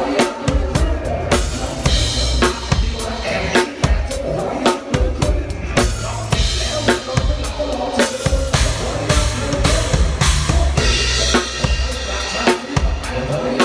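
Drum kit played to a pop song, with kick and snare keeping a steady beat over the song's backing music and bass.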